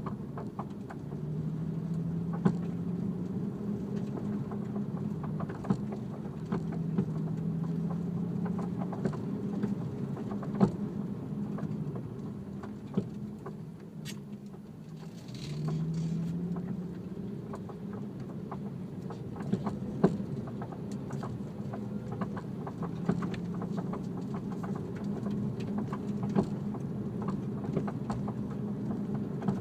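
Irregular sharp clunks and knocks from BC Racing coilovers on an Infiniti G37X sedan, every second or two and some louder than others, over the steady drone of the car's engine and road noise. The clunking comes from the newly installed suspension.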